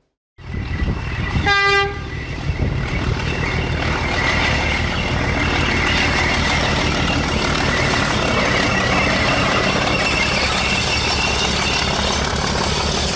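English Electric diesel-electric locomotive giving one short horn toot about a second and a half in, then its diesel engine running loudly and steadily.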